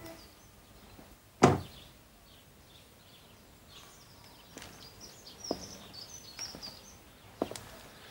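Quiet room tone with faint birdsong coming through in the background. About a second and a half in there is one sharp knock, and a few lighter clicks and knocks follow.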